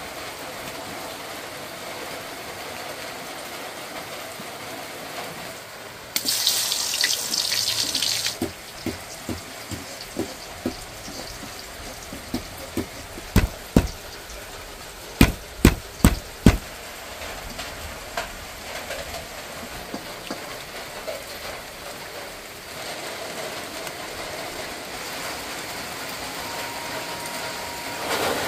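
A knife chopping lemongrass stalks on a thick wooden cutting board: a string of sharp knocks, the hardest six close together near the middle. About six seconds in there is a loud hiss of about two seconds, and a steady hiss of heavy rain runs underneath throughout.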